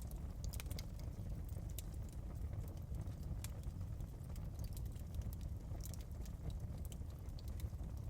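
Wood fire crackling in a fireplace: irregular sharp pops and snaps scattered over a steady low rumble of the flames.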